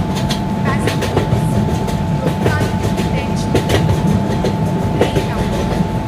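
Passenger train rolling along a station platform: a steady, loud rumble of wheels on rails with scattered clicks and clatter. A steady high hum runs underneath.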